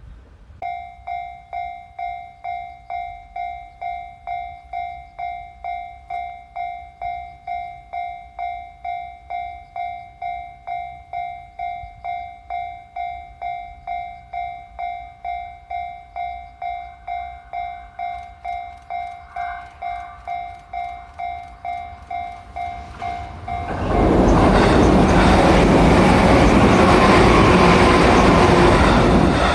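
Japanese level-crossing warning bell ringing steadily, about two strokes a second. About 24 seconds in, an electric train passes over the crossing loudly, drowning out the bell.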